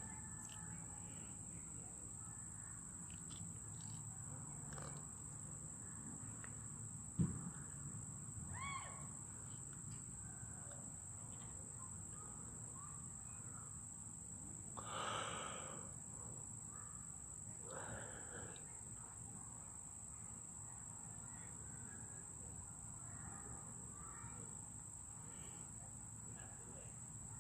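Faint outdoor background with a steady high-pitched whine. A few faint bird calls come through: a short rising chirp about nine seconds in and harsher, caw-like calls about fifteen and eighteen seconds in. There is a single sharp knock about seven seconds in.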